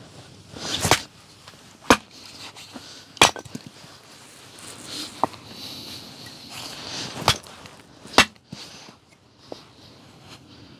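Axe chopping firewood: about five sharp strikes at irregular intervals, with fainter knocks between them.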